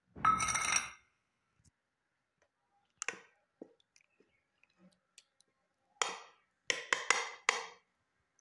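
Metal spoon stirring thick curd in a ceramic bowl. There is a louder clatter in the first second, then scattered clicks, and from about six seconds in a quick run of clinks and scrapes against the bowl.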